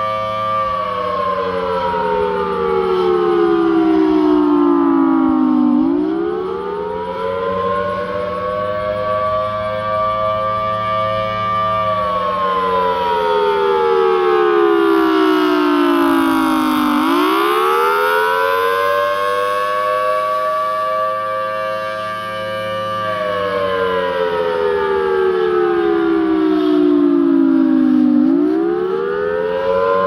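Federal Signal Thunderbolt 1000T rotating outdoor warning siren sounding a wail: its two-tone chord winds up quickly, holds high for a couple of seconds, then slowly falls for about five seconds, repeating roughly every eleven seconds. The loudness swells and fades as the siren head rotates.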